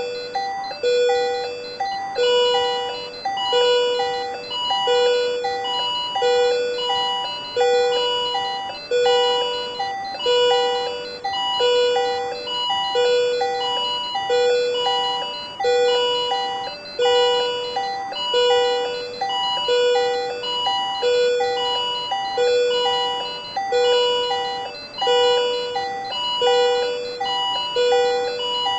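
Patient monitor alarm sounding for supraventricular tachycardia (SVT): a steady, repeating pattern of electronic beep tones, about one cycle a second, with shorter higher tones in between.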